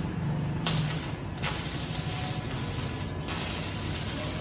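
Stick arc welding: the electrode arc crackles and hisses as it is struck, a short burst under a second in, then a longer run of about two seconds that fades near the end.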